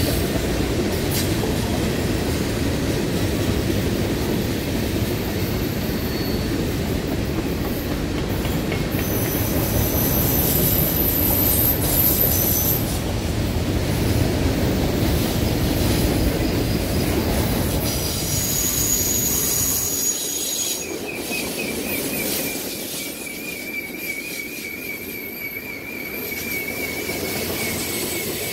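Freight cars of a long mixed manifest train rolling past on a curve: a steady rumble of steel wheels on rail, with thin, high-pitched wheel-flange squeals coming and going. About two-thirds of the way through, the rumble drops away, leaving a fainter roll and a wavering high squeal.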